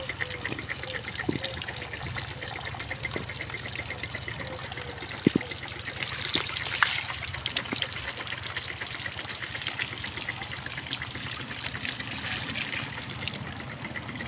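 Water from a garden hose spraying and splashing over a buffalo's back and dribbling off its body into a muddy puddle, with a steady, evenly repeating machine sound underneath and a couple of sharp knocks about five and seven seconds in.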